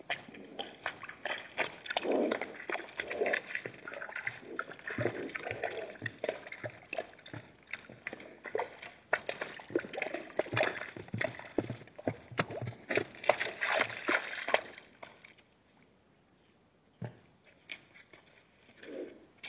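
Hartmann's mountain zebras drinking at a shallow waterhole: irregular slurping and sloshing of water with many small clicks. The sound goes quiet about fifteen seconds in.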